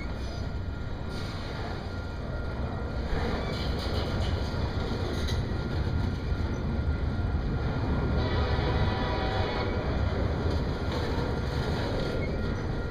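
Double-stack container train's well cars rolling past: a steady low rumble of steel wheels on rail, with a brief higher-pitched whine about eight seconds in.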